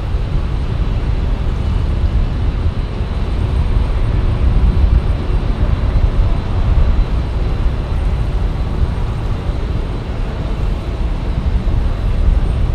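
Jet aircraft engine noise, loud and steady, mostly a deep rumble.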